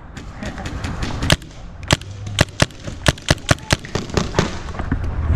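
Paintball markers firing: about a dozen sharp, separate pops, a few single shots early on, then a quick irregular string of shots between about two and four seconds in.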